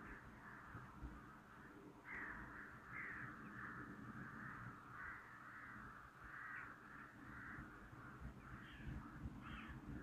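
Crows cawing again and again, faint, over a low background rumble.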